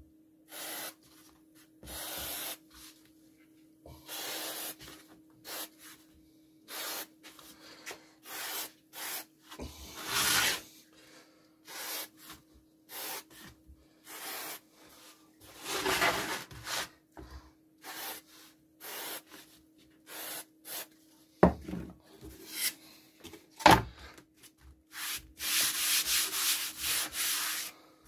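Wood and MDF panels being handled and worked on a workbench: a string of short, irregular rubbing and scraping strokes, with two sharp knocks on the wood about two seconds apart late on, then a quick run of rubbing strokes near the end. A faint steady hum lies underneath.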